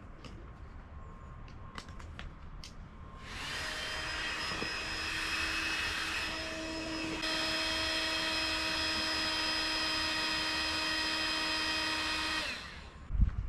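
A small motor with a fan starts about three seconds in and runs steadily with a whining hiss for about nine seconds, then cuts off.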